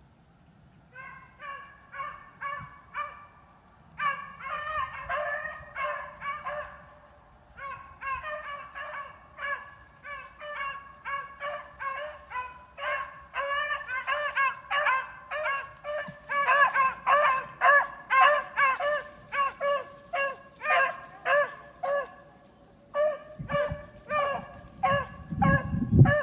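Two beagles baying as they run a rabbit's scent track: a quick run of short, high yelping bays, several a second, louder toward the end. The steady baying is the sign the hounds are on the line and pushing the rabbit. A low rumble comes in near the end.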